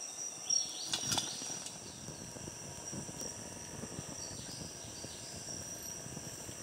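Small wood campfire crackling with irregular small pops, under a steady high insect drone. A couple of sharper clicks about a second in.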